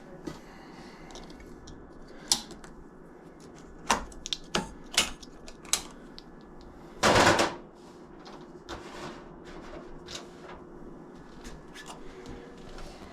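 Sharp clicks and taps from working on an old push-button electronic deadbolt, spread irregularly, with a louder half-second rush of noise about seven seconds in.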